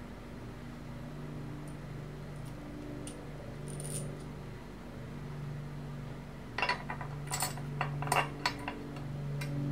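Small metal clinks of a bolt and washer being handled and set into a hand guard's metal mounting bracket: a few faint ticks, then a quick cluster of sharper clinks over the last few seconds, with a steady low hum underneath.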